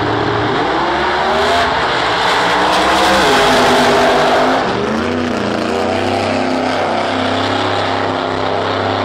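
Two no-prep drag race cars launch and run down the drag strip at full throttle. The engine pitch rises and is loudest in the middle, then drops sharply a little over four and a half seconds in, and a steadier engine note carries on.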